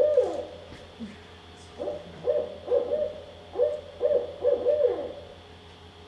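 Barred owl call played from a recording over a room loudspeaker: a rhythmic series of hoots in the 'who cooks for you, who cooks for you-all' pattern, the last note of each phrase sliding down. One phrase ends just after the start, and a second full phrase runs from about two seconds in to about five seconds in.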